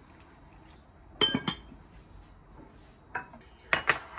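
Hard dishware clinking: the lid set down onto the black pot about a second in, then a small ceramic sauce dish put down on the countertop near the end, each a short cluster of sharp ringing clinks.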